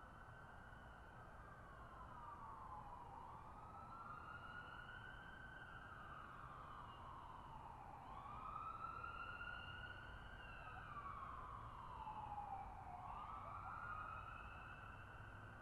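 Police siren wailing, its pitch rising and falling slowly, about one full sweep every five seconds, over a low steady rumble.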